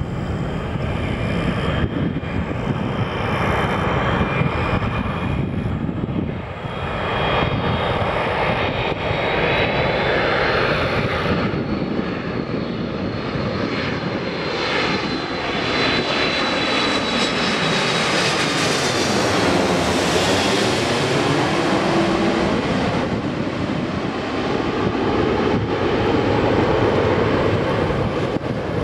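Jet engines of a landing Airbus A330-300 on final approach, a steady loud rush with a high engine whine, passing low overhead about halfway through and then moving away.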